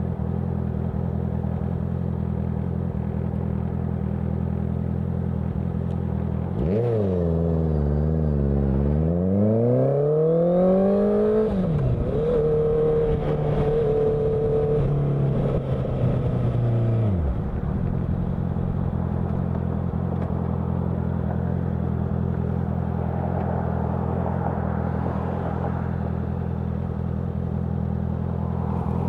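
Honda CBR650F inline-four running through a CS Racing aftermarket exhaust: idling steadily, then revved up about six seconds in, easing briefly before climbing to a higher peak. It then holds a steady raised engine speed for about five seconds before dropping back to idle.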